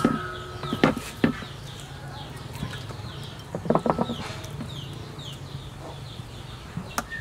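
A stainless-steel bowl clanks and rings briefly as whole plucked chickens are set down in it: once at the start and again about four seconds in. Chickens cluck in the background, along with a bird's repeated short falling chirps.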